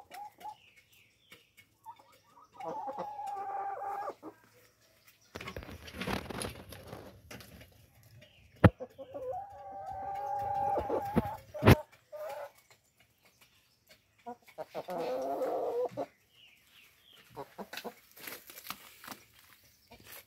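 Light Brahma chickens calling: three drawn-out calls a few seconds apart, among small clicks and scuffling. There is a burst of rustling noise near the middle and two sharp knocks.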